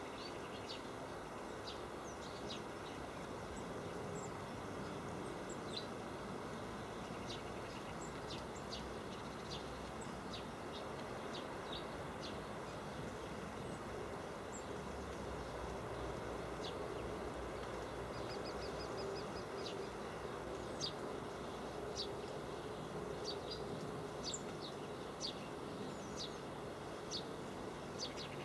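Great tits and blue tits calling: short, high call notes scattered throughout, with a quick run of about seven notes about two-thirds of the way in, over a steady low background noise.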